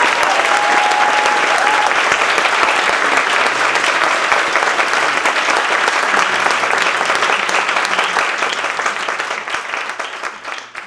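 Audience applauding, dense and loud, with a few shouts in the first two seconds; the applause fades out near the end.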